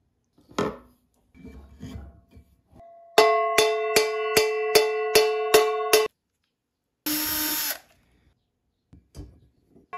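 Hand-forged iron frying pan ringing like a bell under a run of about eight hammer blows, roughly two or three a second, as a wooden handle is driven into its socket handle. The ringing cuts off suddenly, and a short hiss follows; softer knocks and handling come before the blows.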